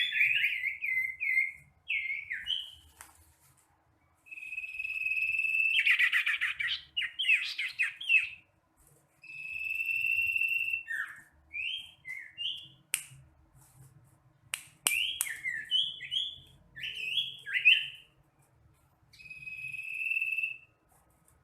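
Bird song of the sirtu, as bird keepers call it: whistled phrases of one to two seconds with short pauses between them. The phrases mix steady high notes, fast buzzy trills and quick rising and falling slurs.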